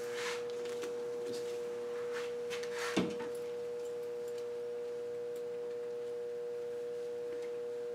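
A steady mid-pitched electrical hum, under faint rustles and clicks of a motorcycle helmet's chin strap being handled, with one sharper knock about three seconds in.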